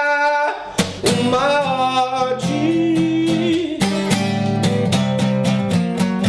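A song with singing over acoustic guitar. A held sung note cuts off about half a second in, and the singing continues. From about four seconds in, a steady strummed guitar rhythm comes in.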